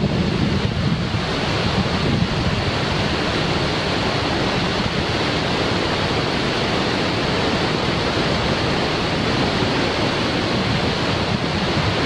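Steady rush of a waterfall and river water running over rocks, with wind buffeting the microphone.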